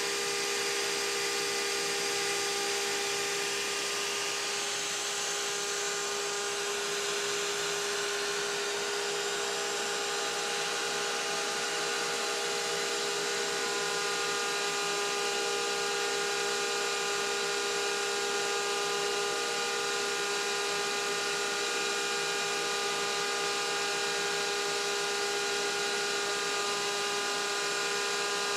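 Wood router with a carbide bit spinning at speed and carving a wooden hammer handle as it turns on the lathe: a steady high motor whine over a rushing hiss. A few higher tones join the whine about halfway through as the feed is adjusted for the finishing pass.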